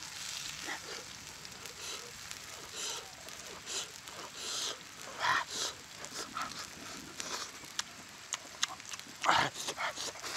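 Close-up eating sounds: a man chewing and smacking his lips over meat eaten by hand, in short irregular crackly noises, with louder mouth noises about five and nine seconds in.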